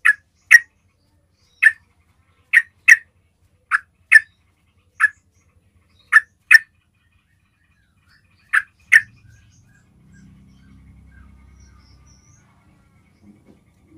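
Yellow-vented bulbul calling: about a dozen short, loud call notes, several in quick pairs, over the first nine seconds, then it falls silent. This is the basic trucukan call used to draw a reply from other bulbuls.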